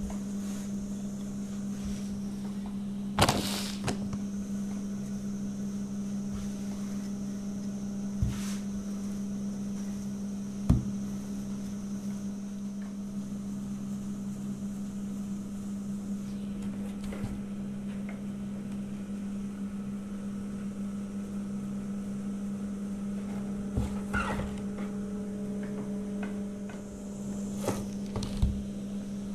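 A steady low hum from a running appliance or motor, with a few sharp knocks and taps from the wooden bread board and rolling pin as the kesra dough is handled; the knocks come twice near the end.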